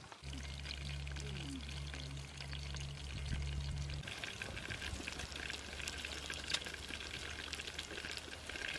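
Water trickling and splashing in a shallow stream: a steady crackly rush with many small drips. A low steady hum runs under it for the first few seconds and cuts off suddenly about four seconds in.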